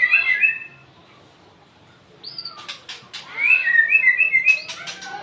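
White-rumped shama singing: a fast warbled phrase that stops within the first second, a short pause, then a second phrase with sharp clicks and rapid trills, then softer notes near the end.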